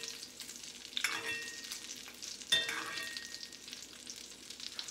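Salmon fillet frying in butter and oil in a cast iron skillet: a steady sizzle with crackling pops. A utensil clinks against the pan twice, about a second in and again, louder, a second and a half later.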